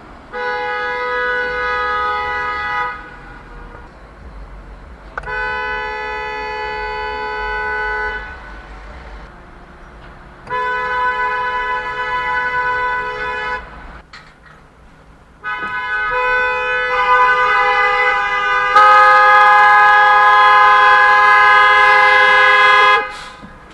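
Car horn blown in long, held blasts: three of about three seconds each with short gaps, then a final blast held for about seven seconds that grows louder partway through.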